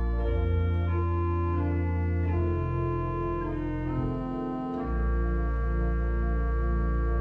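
Three-manual church organ playing sustained chords over deep pedal bass notes, the harmony shifting every second or so. Near the middle the bass drops out briefly, then a full chord with the low bass is held steady from about five seconds in.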